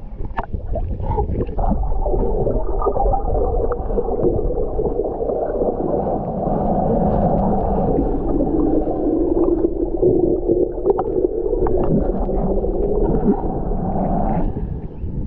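Muffled underwater sound through a submerged GoPro: a low rumble of moving water with scattered clicks and pops, and a wavering hum over it that fades out near the end.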